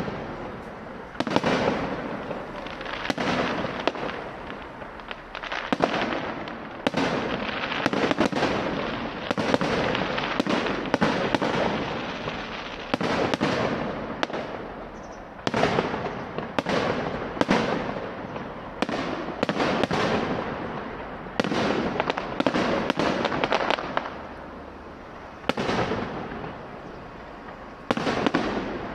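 Fireworks display: aerial shells bursting one after another, a sharp bang every second or two, each trailing off before the next.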